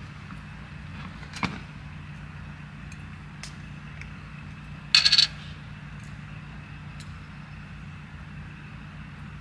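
A steady low hum with a few light ticks, a sharp click about a second and a half in, and a brief ringing metallic clatter about five seconds in, the loudest thing heard.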